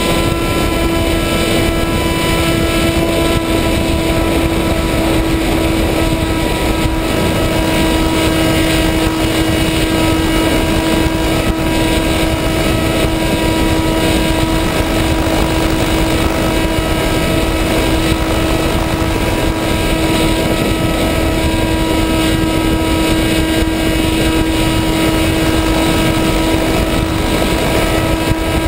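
Model aircraft's motor and propeller running at a steady, nearly constant pitch, heard from a camera on board, with wind rushing over the microphone.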